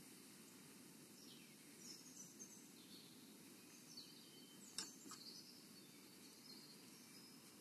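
Near silence: a faint steady background hiss with scattered faint chirps of small songbirds, and one soft click a little before five seconds in.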